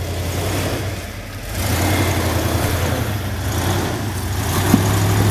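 Off-road 4x4's engine running under low-speed load, getting louder about a second and a half in as the driver gives it more throttle. There is a single short knock near the end.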